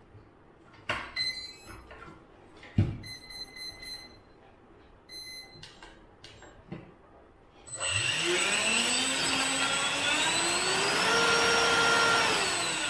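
A few clicks and several short runs of high electronic beeps as a 4S LiPo battery is plugged into the rig. Then, about eight seconds in, the Dynam 70 mm 12-blade electric ducted fan with its 2600 kV motor spins up: a loud whine whose pitch rises in steps, holds high for a few seconds, and starts dropping near the end as the throttle is eased off.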